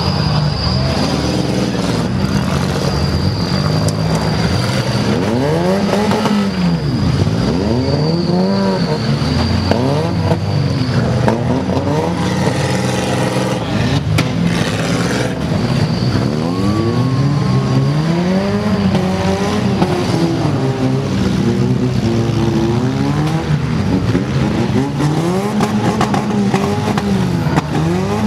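Several compact demolition-derby cars' engines revving up and down over and over as the cars accelerate, back up and ram in the mud. A thin high whine runs through the first ten seconds or so.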